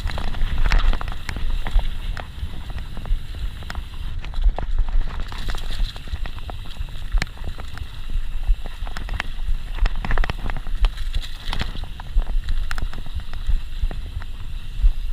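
Mountain bike riding over a rough, dry dirt trail: a steady low rumble with frequent clicks and rattles as the bike jolts over the ground, with wind buffeting the microphone.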